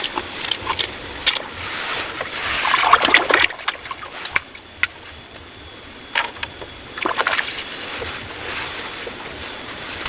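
Water splashing and sloshing in two noisy bursts, one about two seconds in and another about six seconds in, with scattered sharp clicks and knocks.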